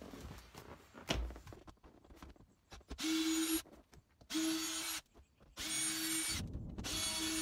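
Cordless drill/driver run in four short bursts, each under a second with short pauses between, backing screws out of the seat hinges. A single knock comes about a second in.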